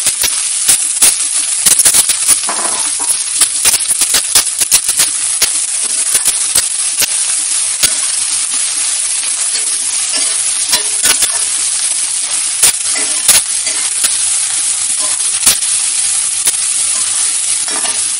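Sliced onions sizzling in hot oil with mustard seeds in a stainless steel kadhai, stirred with a spatula that gives many sharp clicks and scrapes against the pan, thickest about two seconds in.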